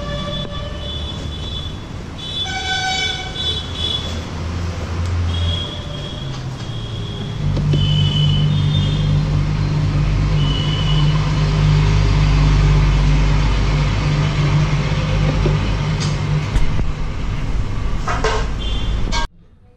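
Street traffic: vehicle engines running with a steady low hum, and horns honking in short repeated toots. Cuts off suddenly near the end.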